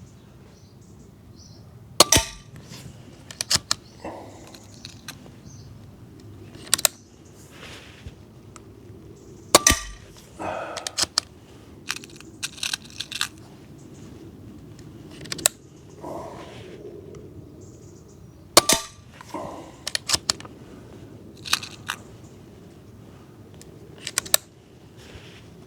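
SMK Snowpeak PP750L .22 PCP air pistol firing single shots several seconds apart, each a sharp crack. Between the shots come smaller clicks and short rattles of the side-lever being cycled to chamber the next pellet.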